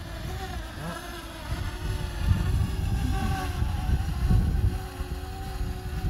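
Parrot Anafi quadcopter's propellers whining as it hovers and climbs a few metres away, the pitch wavering slightly, over gusty wind rumble on the microphone.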